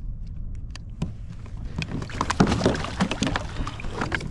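Handling noise aboard a kayak while a redfish is being measured: a quick run of knocks, clicks and rustling against the hull, with a hiss of disturbed water, getting busier about a second in.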